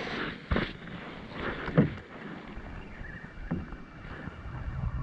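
A few short knocks and bumps in a canoe, with a faint steady hiss of wind and water.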